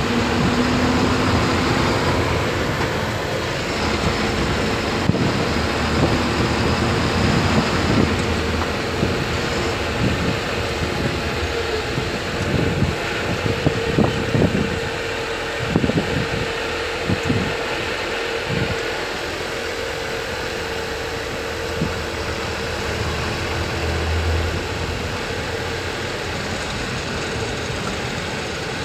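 Heavy dump truck's diesel engine running, heard from inside the cab as the truck drives. A cluster of sharp knocks and rattles comes in the middle, from roughly ten to nineteen seconds in.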